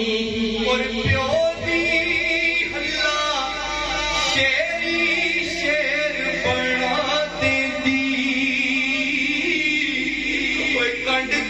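A man singing a naat, a devotional Urdu poem in praise of the Prophet, into a microphone, holding long, wavering notes that glide from pitch to pitch.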